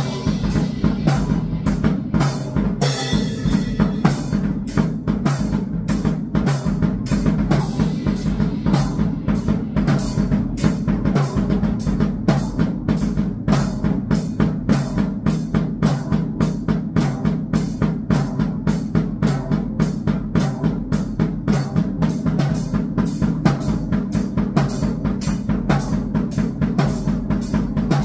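Drum kit played in a steady, driving beat, with bass drum and snare strokes coming at even spacing without a break.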